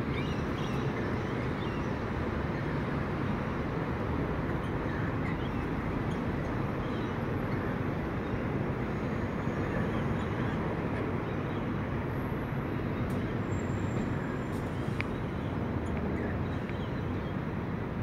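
Steady low rumbling background noise that does not change, with a few faint short high chirps now and then.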